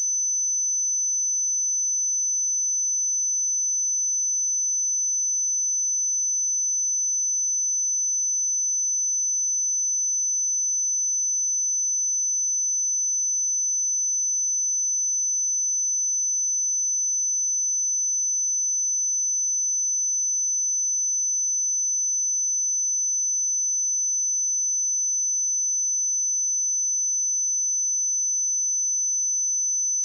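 A steady, unbroken 6057 Hz sine-wave test tone, a single high-pitched pure tone at constant level.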